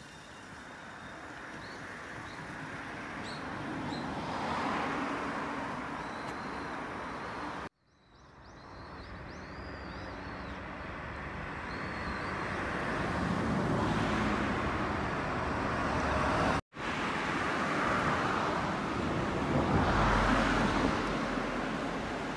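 Road traffic: cars passing one after another, each swelling and fading, with a few faint bird chirps.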